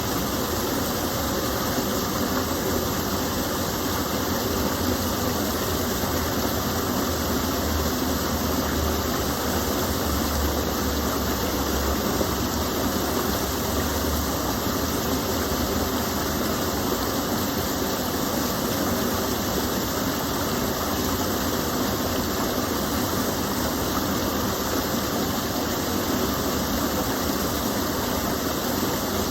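A small stream of water falling and flowing in a steady, unbroken rush.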